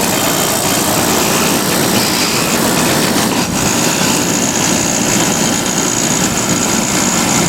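Whirlpool 10,000 BTU window air conditioner running with compressor and fan on: a loud, steady rushing of air over a rough, buzzing compressor, with a steady high whine coming in about halfway. The compressor sounds angry, which the owner ties to a melted compressor neutral wire and a possibly damaged run capacitor.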